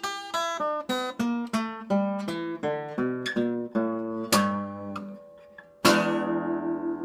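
Blues guitar lick: a run of single picked notes stepping down in pitch, about three a second, then a struck note left to ring and fade. Close to a second before the end a full chord is struck hard and rings on.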